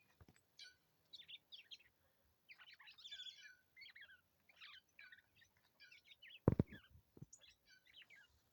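Birds chirping and calling in quick, high, repeated notes, with one loud thump about six and a half seconds in and a smaller knock just after it.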